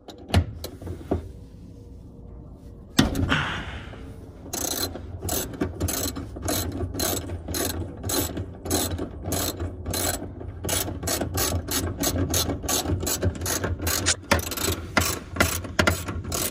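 Socket ratchet wrench clicking as a 17 mm bolt on the fuel pump fitting is worked loose, back-and-forth strokes of pawl clicks repeating a few times a second. A sharp knock comes about three seconds in, before the steady ratcheting begins.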